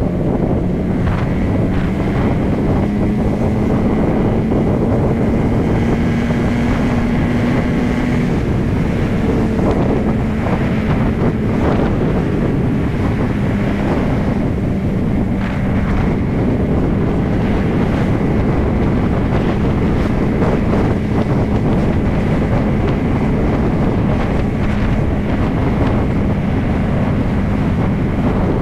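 Heavy wind noise buffeting the microphone of a moving motorcycle, with the bike's engine running steadily underneath at cruising speed; the engine note rises a little a few seconds in, then settles.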